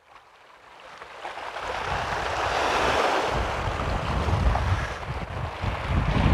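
Small waves washing up a shingle beach, with gusty wind buffeting the microphone in uneven low rumbles. The sound fades in over the first couple of seconds.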